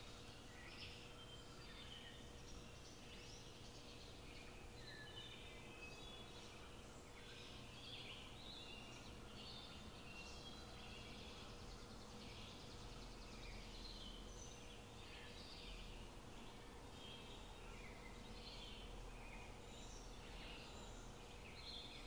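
Faint chirping of small birds, many short overlapping chirps, over a steady low hum.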